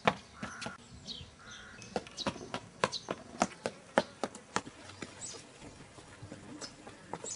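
A child's footsteps running over paving and stone steps: a quick series of sharp taps, about three a second, bunched in the middle of the stretch.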